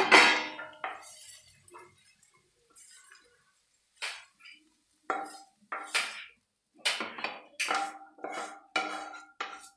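A metal spoon or spatula striking and scraping against a metal cooking pan: one loud clang at the start, then from about five seconds in a run of ringing scrapes and knocks, roughly one or two a second.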